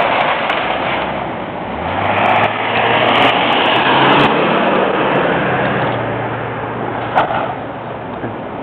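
A vehicle engine running under a broad rushing noise, swelling from about two seconds in and fading again after the middle. A single sharp click comes near the end.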